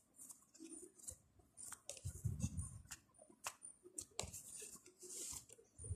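Homemade slime being kneaded and squeezed by hand, giving irregular sticky clicks, small pops and squelches. A dull bump comes a little after two seconds in.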